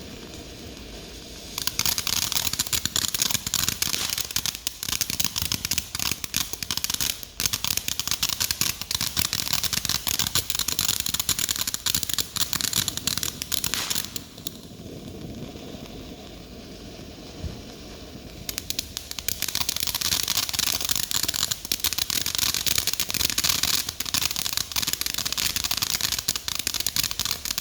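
Fireworks crackling: dense, rapid popping that starts about a second and a half in and runs for about twelve seconds, pauses for about four seconds, then starts again and keeps going.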